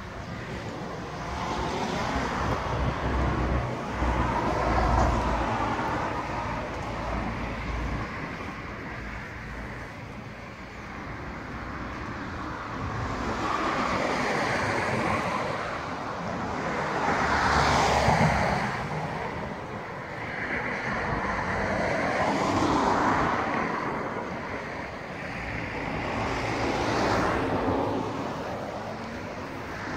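Outdoor road traffic: several vehicles pass one after another, each swelling and fading.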